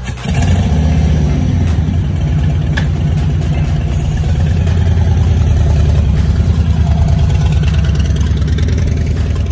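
Harley-Davidson Fat Bob 114's Milwaukee-Eight 114 V-twin engine running, setting in abruptly just after the start with a deep, steady rumble that grows a little louder midway.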